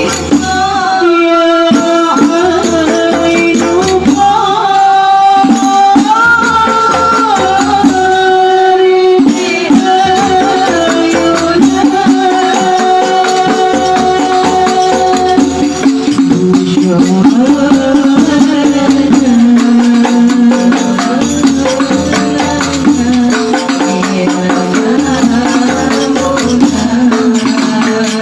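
Sholawat, an Islamic devotional song, sung in a long, gliding melodic line over rhythmic hand percussion: a regular low drum beat and tambourine-like jingles.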